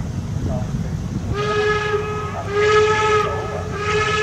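Steam locomotive whistle blowing two short blasts, the first about a second and a half in, over the low rumble of the working locomotive.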